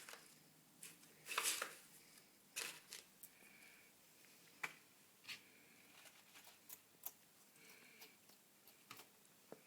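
Bearded dragon chewing a large mealworm: faint, irregular crunchy clicks, with a louder crackling cluster about a second and a half in.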